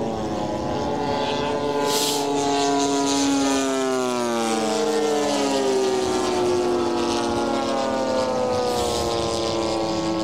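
Propeller engines of a formation of radio-controlled scale warbird models, three of them Douglas Skyraider A-1s, droning together with several pitches at once. Their tones slide downward about halfway through as the planes pass by.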